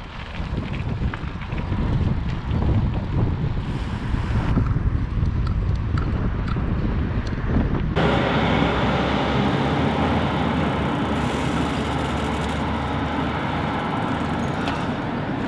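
Riding a bicycle along a gravel track: wind buffeting the microphone over the tyres' crunch and small rattles. About eight seconds in it changes to a steady street noise of passing traffic.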